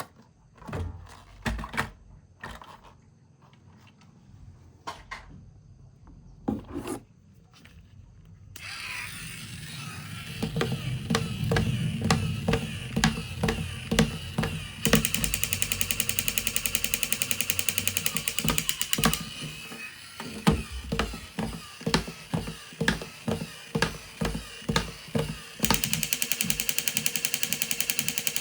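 Clicks and knocks of plastic toy vehicles being handled, then a toy vehicle's small gear mechanism buzzing in two long stretches, with regular clicks between them.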